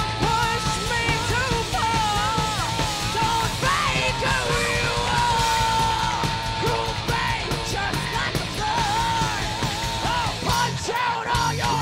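Heavy metal band playing live, with full drums and distorted guitars under a high, wavering lead vocal line.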